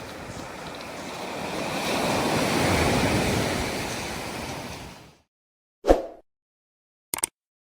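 Pacific Ocean surf breaking on the beach, a wave swelling to its loudest about three seconds in and then fading. The sound cuts off suddenly about five seconds in, followed by a single sharp hit and, near the end, a quick double click.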